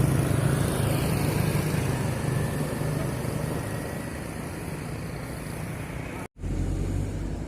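Motor vehicle engine running close by over road noise, slowly fading away. The sound drops out abruptly about six seconds in, then a steady low engine hum resumes.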